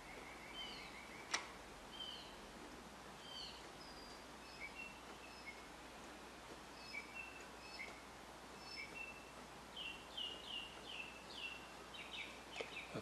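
Faint small-bird chirping: short, quick calls in little series that grow busier near the end. One sharp click comes about a second in.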